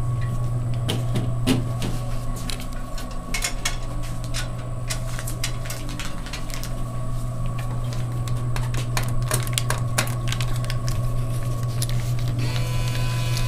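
Coca-Cola vending machine humming steadily, with scattered clicks and knocks as its bottle delivery door is pushed and handled. Near the end the bill acceptor starts to whir as a dollar bill is fed into it.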